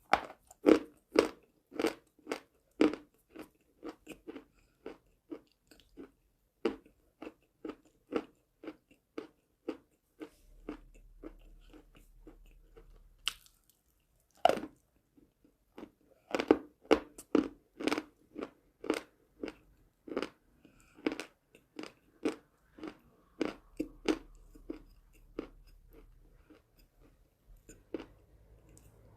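A person crunching and chewing dry chalk close to the microphone, with sharp crunches about two a second. The crunching pauses for a few seconds, then a loud bite comes about halfway through and the chewing resumes.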